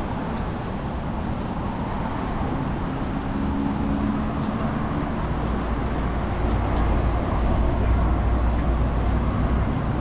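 City street traffic: vehicles passing, with a low engine rumble that grows louder about halfway through.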